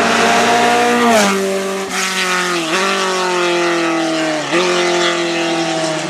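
An open-wheel single-seater race car's engine revving hard as it passes at speed. The note drops sharply as the car goes by, about a second in. It then dips briefly twice, near the middle and after about four and a half seconds, at quick gear changes as the car pulls away.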